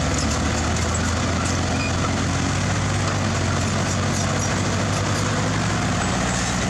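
Heavy diesel engine of a construction machine running steadily under load, its pitch shifting slightly about six seconds in.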